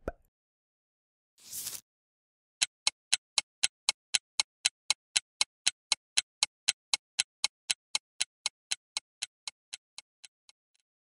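A whoosh, then an even clock-like ticking sound effect at about four ticks a second that fades away near the end: a countdown timer running while the menu waits for a choice.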